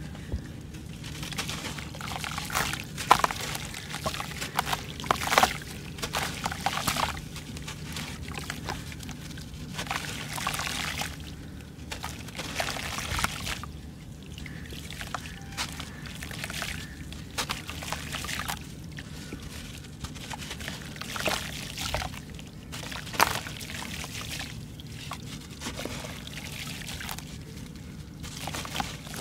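A soaked, crumbly grey sandy block squeezed and broken in the hands over a basin of water. Wet grit and water pour and drip from it into the water in irregular bursts.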